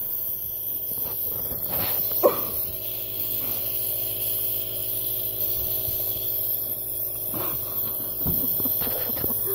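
Nebulizer air compressor running with a steady hum and hiss, driving the jet nebulizer's mist. Over it come a few brief sniffs from a dog nosing at the mask and a single sharp tap about two seconds in.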